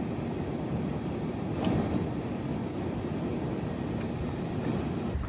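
Wind rumbling on the microphone outdoors, a steady low noise, with one short click about a second and a half in.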